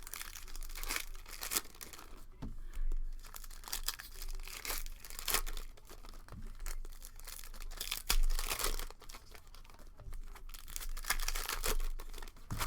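Trading card pack wrappers being torn open and crinkled, an irregular run of crackling and rustling.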